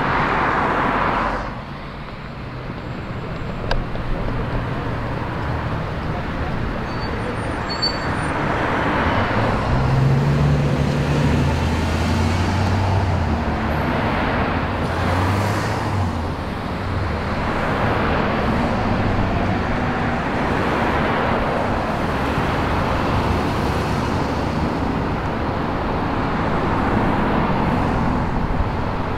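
Street traffic: cars passing one after another, each swelling and fading, over a low engine hum.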